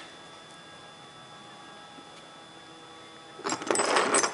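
Faint steady hum of room tone, then near the end a brief, loud noisy handling sound lasting under a second.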